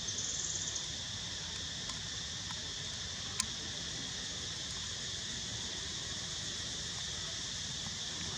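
Steady, high-pitched chorus of insects droning without a break. A short, higher trill comes in the first second, and one sharp click about three and a half seconds in.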